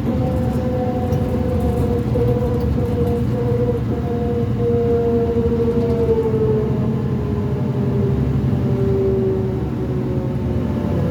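2005 New Flyer D40LF transit bus under way, its Cummins ISL diesel and drivetrain rumbling with a steady whine on top that slowly falls in pitch. The whine is of the kind the uploader calls a weird axle noise.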